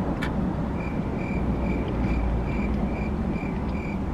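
Steady low rumble of a car heard from inside the cabin, with a faint high-pitched tone pulsing evenly about four to five times a second starting about a second in.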